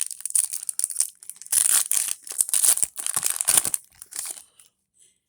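Foil Yu-Gi-Oh booster pack wrapper crinkling and rustling as it is handled and opened, in irregular bursts that die away about four seconds in.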